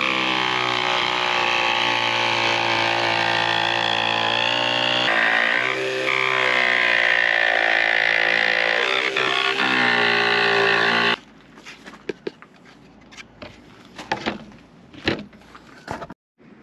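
A small electric jigsaw runs with a steady buzzing whine while cutting a carbon fiber and foam-core sandwich sheet; its pitch sags and shifts as the blade is loaded. It cuts off abruptly about eleven seconds in, followed by scattered clicks and knocks as the tool and sheet are handled.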